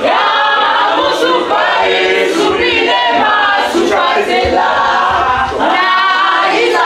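A crowd singing together unaccompanied, many voices in chorus at once.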